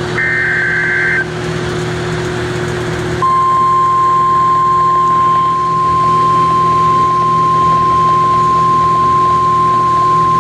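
Weather-radio alert broadcast: a burst of screeching two-tone SAME header data, lasting about a second, then after a short hiss the steady 1050 Hz single-tone warning alarm starts about three seconds in and holds, all over a low steady hum. The tone signals that a new National Weather Service alert is about to be read.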